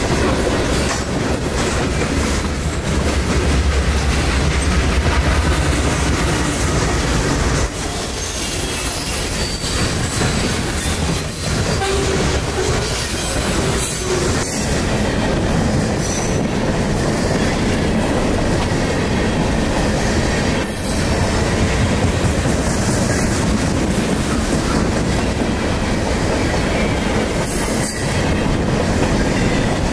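CSX freight train passing close by, its wheels rolling loudly and steadily over the rails. A deep rumble fills the first eight seconds, then the rush and clatter of the cars carries on.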